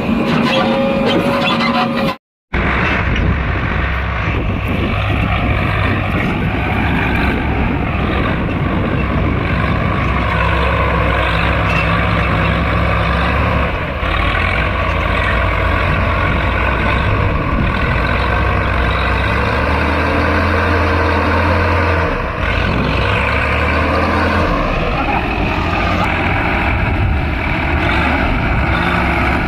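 JCB 3DX backhoe loader's diesel engine running hard while working, its revs rising and falling. The sound cuts out completely for a moment about two seconds in.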